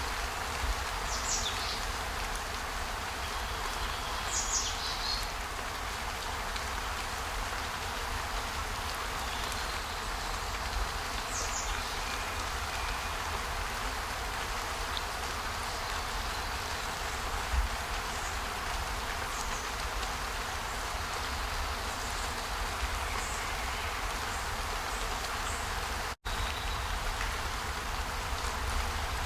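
Steady outdoor nature ambience: an even hiss with a low rumble beneath it, a few short high chirps in the first dozen seconds, and a momentary silent gap near the end.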